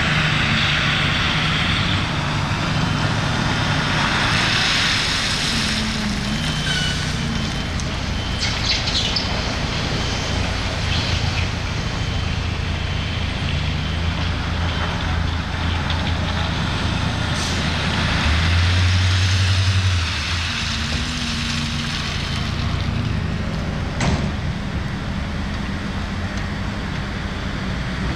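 Heavy diesel machinery, a wheel loader and truck, running with a steady low engine drone that rises in level for a couple of seconds about two-thirds of the way through. A broad hiss sounds over the engines in the first few seconds, and there is a single sharp knock near the end.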